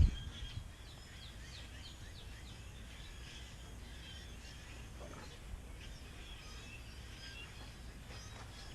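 Background birdsong: several birds chirping and calling in short, repeated notes, over a faint steady low rumble.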